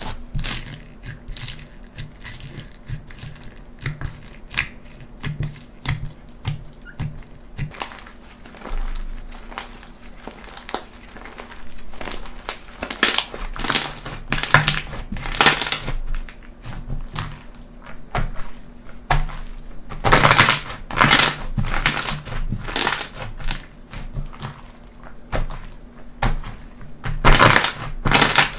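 Slime being squeezed and pressed by hand, giving irregular crackling pops and clicks with louder squishing swells now and then.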